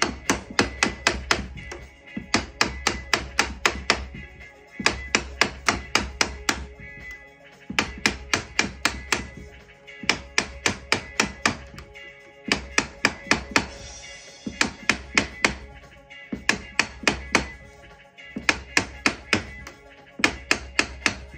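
Mallet repeatedly striking the handle of a plastic-handled screwdriver wedged into a chair seat's spline groove, to break the old glued spline loose for removing a pressed cane seat. Quick runs of sharp knocks, about four or five a second, with short pauses between runs.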